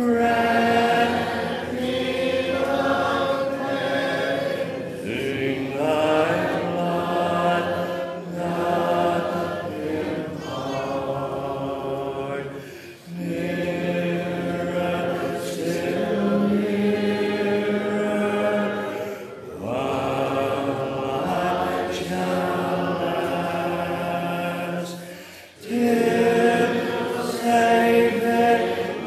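Congregational hymn sung a cappella, voices only with no instruments, led by a man's voice at the microphone. The singing moves in held phrases with short breaks between lines about 13 and 25 seconds in.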